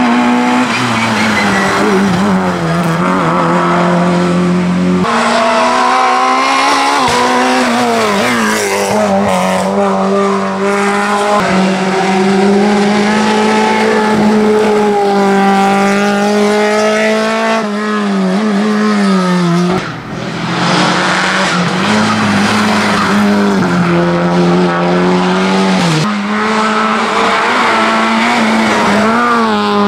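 Hillclimb race cars, among them an orange Simca 1000 Rallye and a Peugeot 106, driven hard up a twisting road one after another. The engines rev up and drop back over and over with the gear changes and corners.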